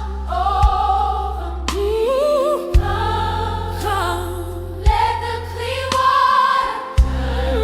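Gospel music: choir voices and a lead voice singing long, sliding lines over a deep bass, with a sharp drum hit about every two seconds.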